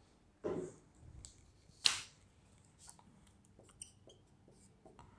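A sharp single click about two seconds in. From about three and a half seconds, faint taps and short high squeaks of a marker beginning to write on a whiteboard.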